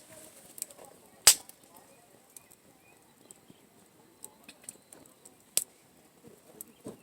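Wood campfire crackling: scattered sharp pops and ticks from the burning wood, with a loud crack about a second in and another loud pop past five seconds.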